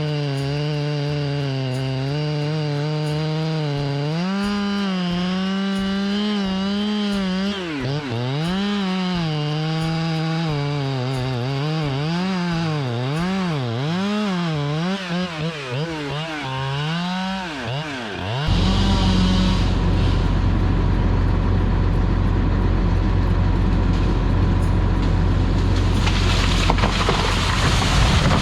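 Chainsaw cutting into a big white oak, its engine pitch sagging and recovering over and over as the bar loads in the wood. About 18 seconds in, a louder, rougher noise takes over.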